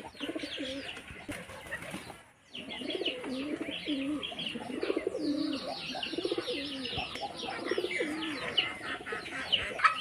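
Domestic pigeons cooing over and over in a loft, with many quick, high, falling chirps from birds over the cooing. The sound breaks off briefly a little over two seconds in, then the cooing and chirping carry on.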